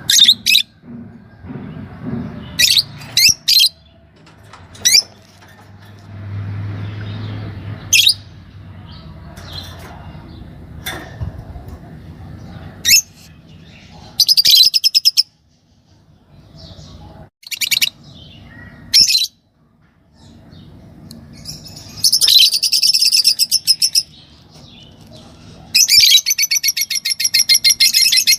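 A pair of green Fischer's lovebirds chirping with short, sharp, high calls, broken by bursts of rapid chattering trills about halfway through and twice near the end.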